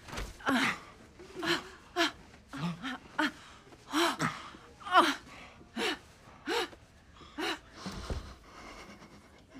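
A woman moaning and gasping during sex, about a dozen short cries that rise and fall in pitch, one every half second to second, stopping about eight seconds in.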